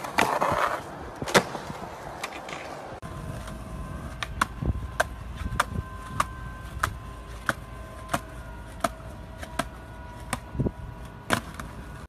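Skateboard wheels rolling on concrete, with a loud clack about a second and a half in. From about three seconds on there is a regular run of sharp clicks, roughly one every two-thirds of a second, over the wheel rumble.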